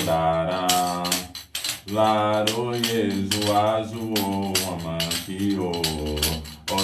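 A single voice chanting a Yoruba orin (devotional chant) to Exu in sliding melodic phrases, with a brief breath about a second and a half in. A handheld rattle is shaken in time, two or three strokes a second.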